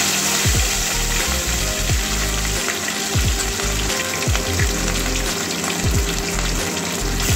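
Katla fish steak frying in hot oil in a kadai, a steady sizzling hiss.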